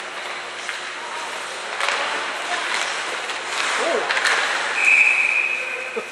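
Ice hockey rink crowd noise with a few sharp clacks of sticks and puck, a brief shout, then a shrill steady whistle held for over a second near the end, typical of a referee stopping play.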